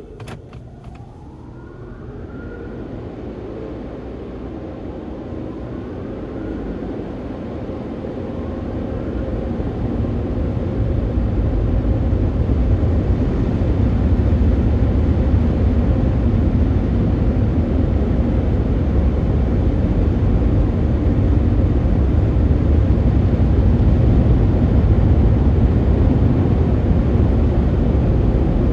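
Road traffic: a vehicle's engine rises in pitch through a couple of gears, then a deep, steady rumble of heavy vehicles builds up over several seconds and stays loud.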